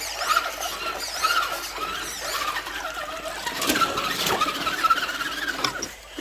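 Electric motors and gearboxes of 1/10 scale RC crawlers whining as they climb a steep wall, the pitch wavering up and down with the throttle, with a couple of sharp knocks from the trucks on the rock around the middle.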